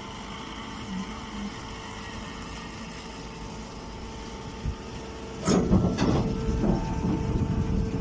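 Chopped-straw bagging baler running with a steady machine hum. About two-thirds of the way through, a louder, rough, irregular clattering comes in and continues as the machine works the straw.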